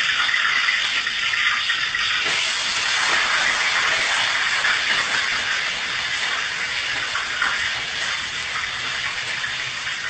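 Hot oil in a wok sizzling and spattering in a steady hiss, slowly easing off toward the end.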